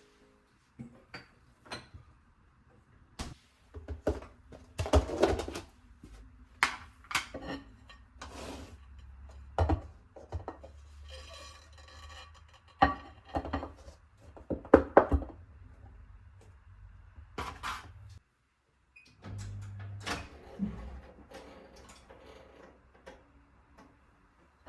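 Kitchen handling sounds: dishes, pans and utensils being set down and moved, making a string of irregular clicks, clinks and knocks.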